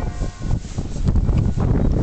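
Wind buffeting the microphone, an uneven, gusty low rumble.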